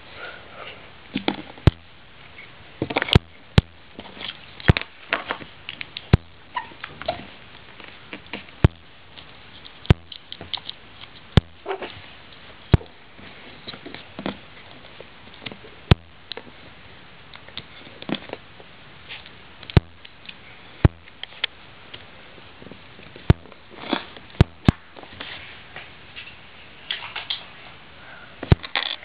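Plastic Lego bricks being handled and pressed together: irregular sharp clicks and taps, a few every couple of seconds.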